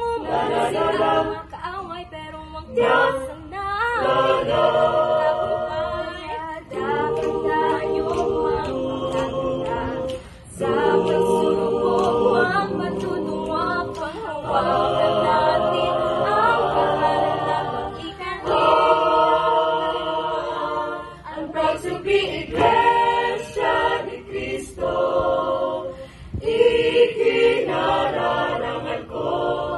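Mixed choir of men's and women's voices singing a cappella, with no instruments: held notes and phrases broken by short pauses between lines.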